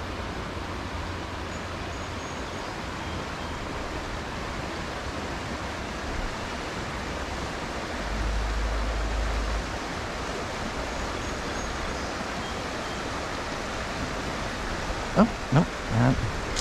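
Steady rushing of a small creek's flowing water, an even wash of noise, with a brief low rumble about eight seconds in.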